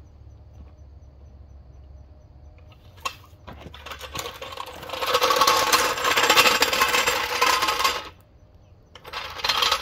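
Steel floor jack being rolled across a gravel driveway, its wheels crunching and rattling over the stones. The rattling grows louder from about four seconds in, stops for a moment about eight seconds in, then comes again briefly near the end.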